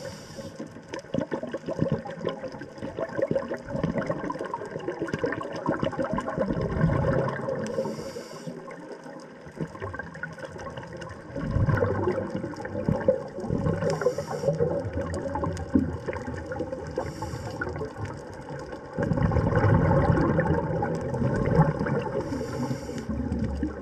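Underwater water noise: continuous bubbling and gurgling that swells about twelve seconds in and again for the last few seconds, with brief hisses several times.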